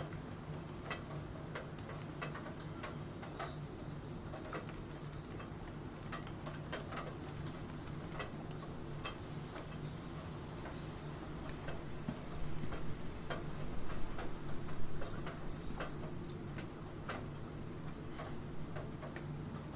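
Computer keyboard typing: irregular key clicks, a few to several a second, over a steady low hum and the soft hiss of rain. The clicks grow louder and denser about twelve seconds in for a few seconds.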